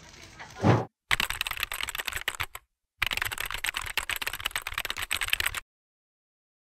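Keyboard typing sound effect with rapid key clicks, in two runs of about a second and a half and two and a half seconds with a short pause between. A short loud burst of noise comes just before the typing starts.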